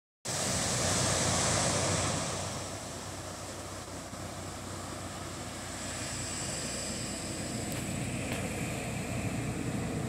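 Atlantic Ocean surf breaking on a sandy beach. A wave crashes loudly in the first two seconds, then the surf settles into a steady wash.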